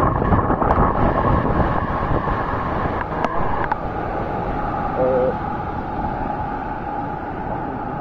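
The Krimml Waterfalls falling close by: a loud, steady rushing of water crashing onto rock, easing slightly a few seconds in. A short tone sounds briefly about five seconds in.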